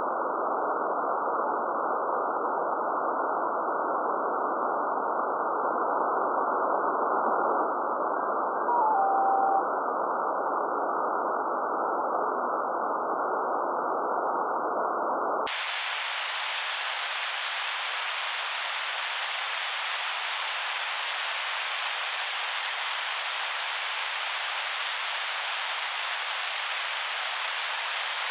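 Steady hiss of radio static from an RTL-SDR receiver in upper-sideband mode, with a brief whistle that steps down in pitch about nine seconds in. About halfway through the static cuts over to a thinner, brighter hiss as the receiver is switched to AM mode.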